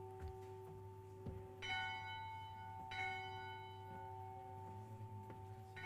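A single bell struck three times, the tone of each strike ringing on and overlapping the next. The strikes come about a second and a third apart, then one more near the end.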